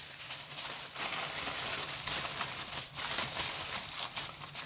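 Aluminium foil crinkling and crackling as it is handled and pressed down over a cooking pan, a continuous run of small sharp crackles.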